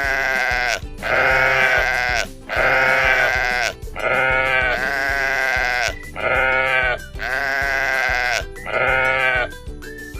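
Sheep bleating over and over, about seven long, wavering bleats of around a second each with short pauses between them.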